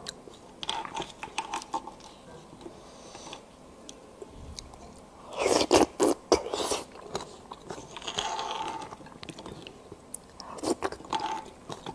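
Close-miked eating sounds: biting and chewing of beef bone marrow in bursts of clicks, loudest about halfway through.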